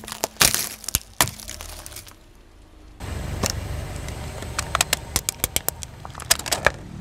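A car tyre crushing plastic tubes of wooden toothpicks: a quick run of sharp snaps and cracks in the first second or so. After a short lull, over a low car rumble, the tyre slowly squashes a hollow pink plastic toy ball, which gives a long series of sharp plastic cracks.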